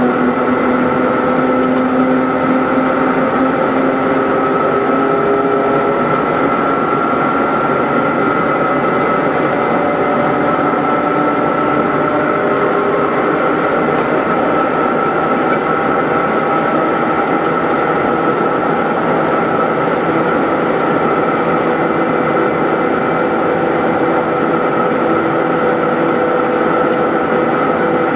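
BMW E90 325i race car's straight-six engine pulling hard under full throttle, its note slowly rising as the car gains speed. Wind and road noise are mixed in, heard from inside the car.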